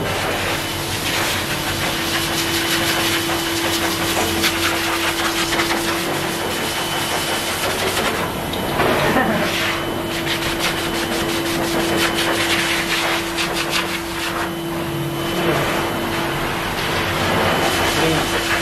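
Pet grooming blower dryer running: a steady rush of air from its hose with a constant motor hum, blowing over a wet cat's fur to dry it after a bath.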